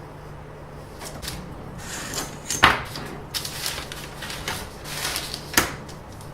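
Rustling handling noise with two sharp knocks, the first about two and a half seconds in and the second near the end, over a steady low hum.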